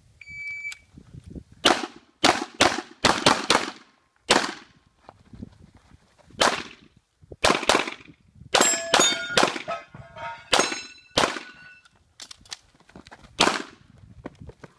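A shot timer beeps once, then a Glock pistol fires a string of about twenty shots, some in quick pairs and some with pauses between them. Steel targets ring after several of the hits in the middle of the string.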